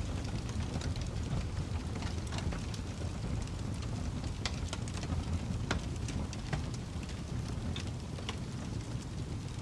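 Crackling wood fire: a steady low rumble of flames with scattered sharp pops and snaps at irregular intervals.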